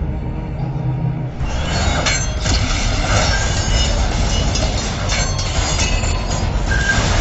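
Film trailer sound effects: a low held tone, then from about a second and a half in a dense rushing noise with many sharp hits, the whooshes and strikes of a fight with a staff and blade.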